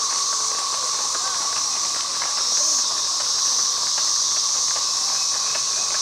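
Chorus of 13-year periodical cicadas: a steady high buzzing drone with a lower, even whine beneath it.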